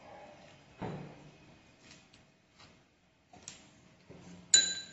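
A few light knocks and clicks of kitchen utensils, then near the end a sharp metallic clink that rings briefly: a steel spoon striking a stainless steel mixing bowl.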